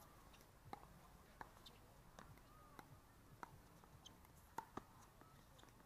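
Faint, sharp pops of pickleball paddles hitting the plastic ball, about one every two-thirds of a second, with two quick hits close together near the end.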